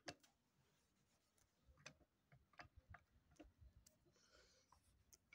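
Near silence with a handful of faint, scattered sharp clicks and ticks.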